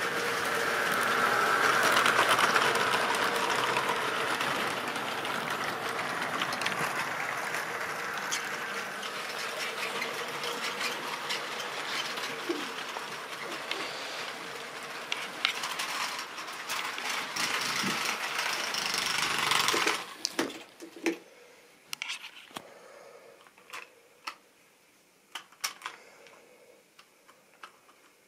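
Model railway diesel locomotive running on the track: its small electric motor whirs steadily with some clicks, loudest in the first few seconds, then cuts off about 20 seconds in. After that, only a few scattered light clicks.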